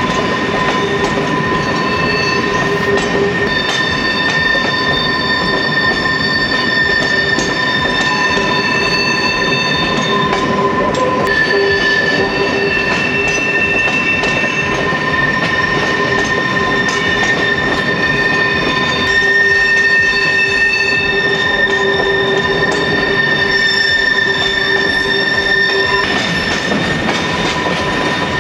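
Logging train on the Englewood line rolling along, its wheels squealing in several steady high tones, with shorter, higher squeals starting and stopping over the steady running noise of the cars.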